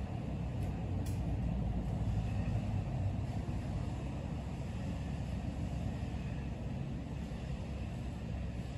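Steady low rumbling background noise with no distinct events, and a faint click about a second in.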